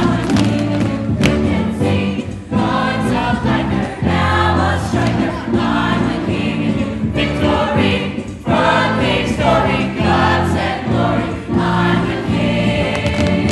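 A large ensemble cast singing an opening-number show tune together in chorus, over instrumental accompaniment with sustained low notes.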